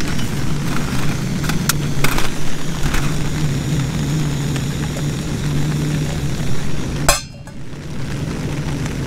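Portable camping gas stove burner running with a steady hum, with a few metallic clinks of cookware in the first few seconds. The hiss cuts off suddenly about seven seconds in, leaving a quieter hum.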